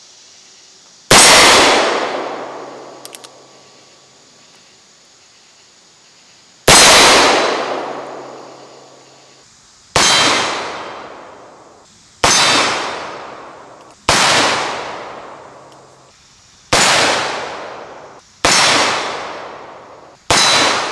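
Eight shots from an original Colt 1860 Army .44 black-powder cap-and-ball revolver loaded with paper cartridges. The shots come one to five seconds apart, and each one rings on after it with a clang from hits on a steel silhouette target. The first two are the loudest.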